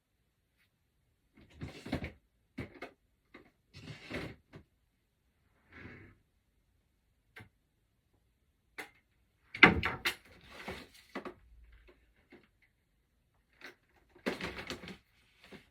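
Someone rummaging while searching for something: a string of irregular knocks, clatters and rustles of things being moved and shut, with a sharp knock about ten seconds in the loudest.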